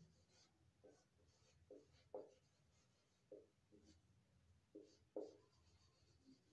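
Marker pen writing on a whiteboard: faint, short strokes and squeaks, a dozen or so, as letters are drawn.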